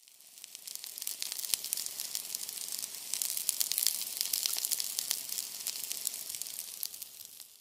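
Steak searing on a hot ridged grill pan: a steady sizzle full of sharp crackles and pops. It fades in over the first second and fades out near the end.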